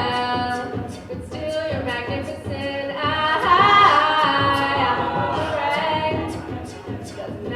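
An a cappella group singing wordless chord harmonies, with vocal percussion keeping a steady beat.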